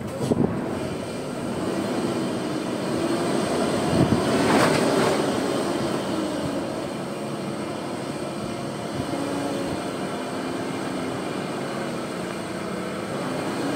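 Diesel engine of a fully loaded Hino 500 truck running steadily at low speed. The sound swells louder for a moment about four to five seconds in.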